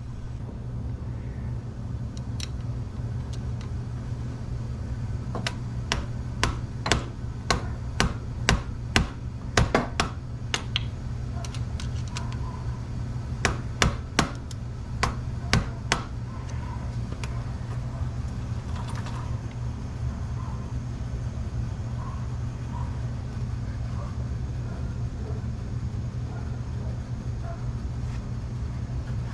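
Hammer tapping on a screwdriver against an ATV drive chain's master link: two runs of sharp metal strikes, about two a second, over a steady low hum.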